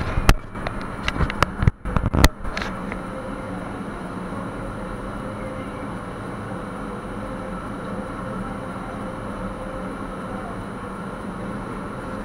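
Sharp knocks and clatters of someone climbing through a timber-framed shaft for the first few seconds. Then a steady mechanical drone with a low hum.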